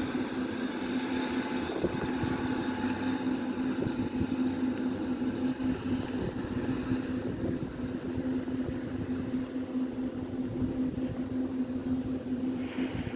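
Class 150 diesel multiple unit pulling away: a steady diesel engine drone, with higher tones that fade out about halfway through as the train draws off. Gusty wind buffets the microphone.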